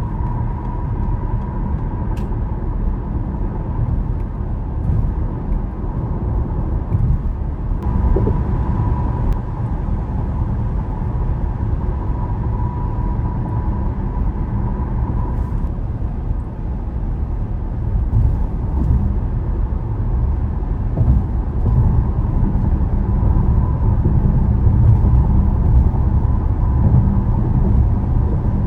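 Car driving at highway speed: steady low road and tyre rumble, with a faint steady whine above it.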